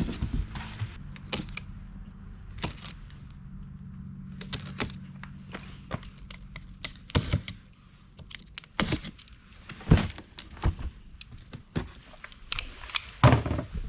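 Handling noise: a string of separate knocks, taps and clicks, as of parts and packaging being picked up and set down, with a faint low hum under the first few seconds.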